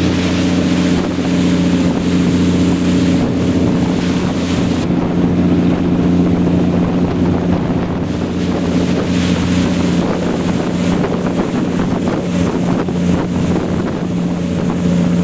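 Speedboat engine running steadily at speed, with a hum of several steady tones under the rush of wind on the microphone and water against the hull. The wind rush eases for a few seconds midway.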